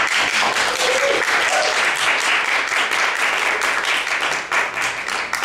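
Audience applauding, a dense patter of many hands clapping that thins into scattered separate claps near the end.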